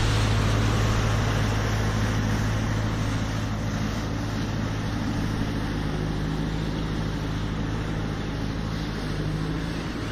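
A steady low engine drone that slowly fades, mixed with wind noise on the microphone.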